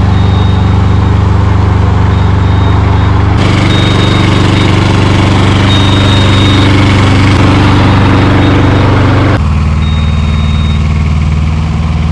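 Engine running steadily at idle, its speed stepping up about three seconds in and dropping back about nine seconds in.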